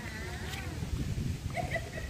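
An animal crying out in short, pitched calls: one at the start and a couple of shorter ones about a second and a half in, over a low rumbling noise.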